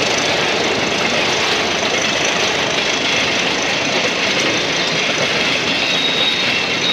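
Covered freight wagons of a passing freight train rolling by close up: a loud, steady rolling noise of steel wheels on the rails. A faint high squeal comes in near the end.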